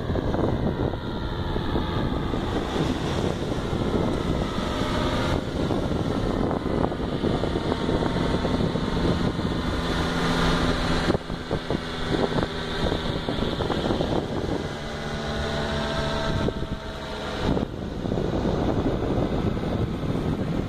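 Paramotor engine and propeller droning overhead under heavy wind buffeting on the microphone. The steady engine tone is clearest in the middle stretch.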